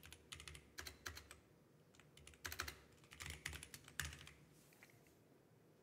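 Computer keyboard typing, faint, in short bursts of keystrokes that stop about four and a half seconds in.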